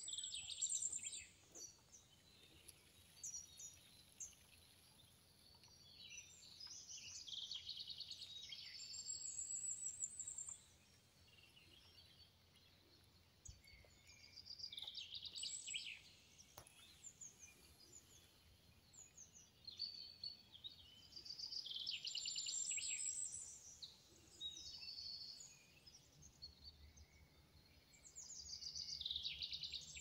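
Wild songbirds singing: short phrases of high, rapid trills recurring every few seconds, some overlapping, over a faint steady outdoor background.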